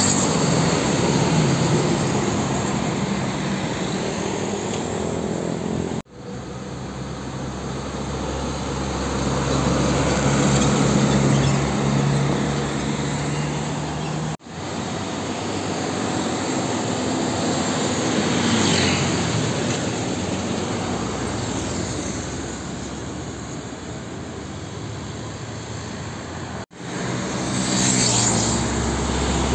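Heavy diesel trucks driving past on a road with other traffic, engines running and tyres on the asphalt, each passing swelling and fading. The sound breaks off abruptly three times where separate clips are joined.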